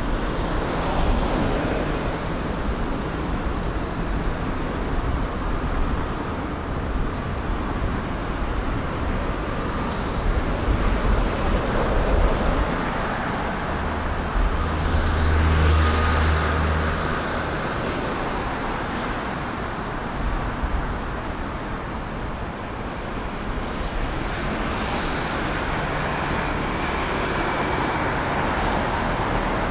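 Steady city street traffic, with cars passing one after another. A heavier vehicle passes with a low rumble about halfway through.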